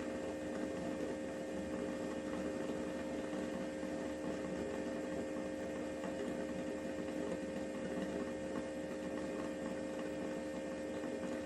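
Xiaomi X20 Pro robot vacuum base station running its mop-bay cleaning cycle: a steady motor and pump hum with two low steady tones.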